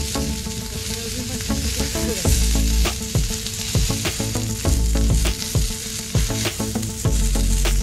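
Meat sizzling on a hot iron griddle plate: a steady frying hiss with many sharp pops and crackles of spattering fat.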